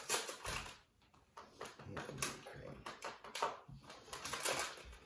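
A snack chip bag being torn open and handled, its plastic packaging crinkling and crackling in irregular bursts.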